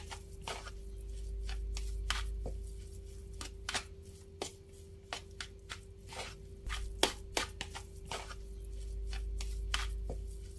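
A bare hand squeezing and mixing crumbly mashed tofu with spice paste in a plastic bowl: irregular soft crackles and clicks of the moist crumbs and fingers against the bowl, over a faint steady hum.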